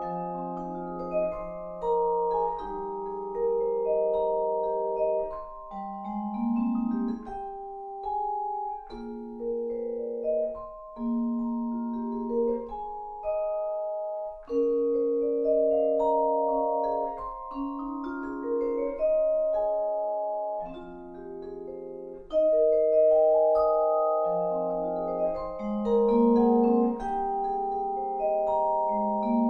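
Solo vibraphone played with four mallets: chords and melodic lines of long, ringing notes that overlap one another. A few low notes slide upward in pitch.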